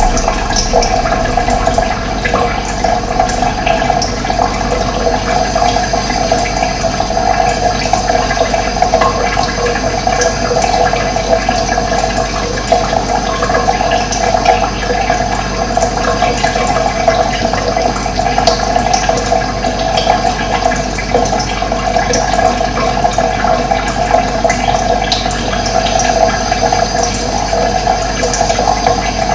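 Running water flowing steadily, with a few faint short bird chirps here and there.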